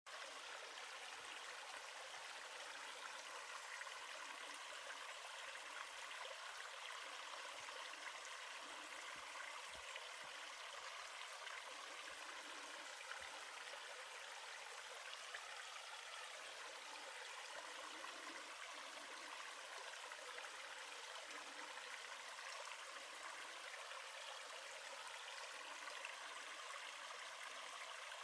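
Mountain stream water sliding down a sloping rock slab in a small slide waterfall: a steady, even rush of water with little bass.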